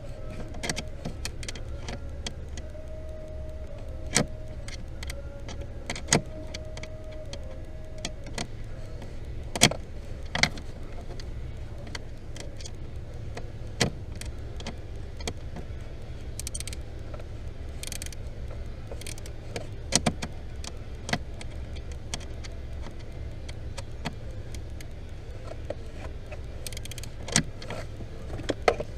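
A small electric motor whines in short runs over the first eight seconds or so, over a steady low hum, with sharp clicks and knocks at irregular intervals throughout.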